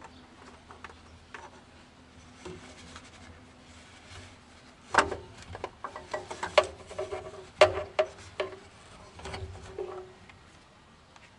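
A gloved hand working down inside a car's engine bay: rubbing and scraping, then a run of sharp knocks and clunks of parts striking the engine between about five and ten seconds in.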